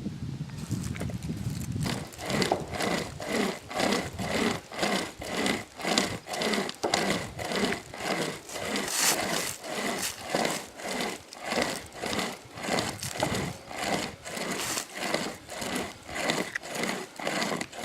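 Sportsman pocket chainsaw, a hand-pulled saw chain, rasping back and forth through an oak trunk in a steady rhythm of about two strokes a second, starting about half a second in.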